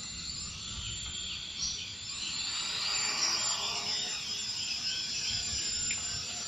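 Hubsan X4 Desire Pro H216A quadcopter's motors and propellers whining, their pitch sliding up and down as the drone lifts off and settles into a hover. The sound grows louder over the first three seconds, then holds steady.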